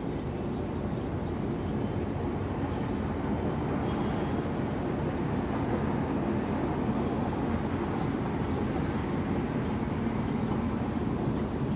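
Steady low rumbling background noise, with faint short high-pitched chirps or ticks here and there.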